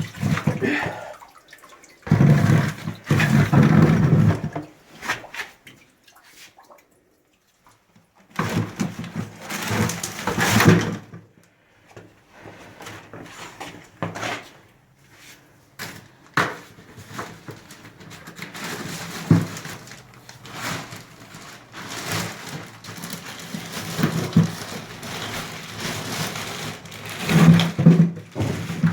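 Water sloshing and running off a basement sewage pump as it is hauled up out of its pit, mixed with knocks and handling noise, in several separate stretches.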